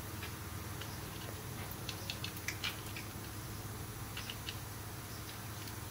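Scattered light clicks and taps as a 7.3L gas V8 hanging on a hoist chain is twisted and worked out of the engine bay, a cluster about two seconds in and another about four seconds in, over a steady low hum.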